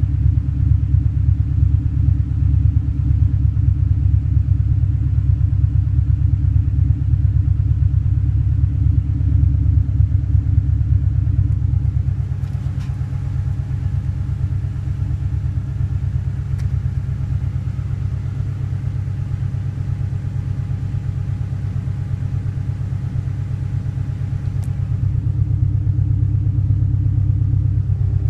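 Naturally aspirated Subaru flat-four boxer engine idling through a fully custom dual exhaust: a steady, low, purring burble at the tailpipes. The idle eases a little quieter about twelve seconds in and picks up again near the end.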